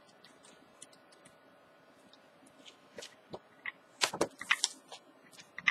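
Pages of a coloring book being flipped by hand: faint paper ticks, then a cluster of louder rustles and flicks about four seconds in.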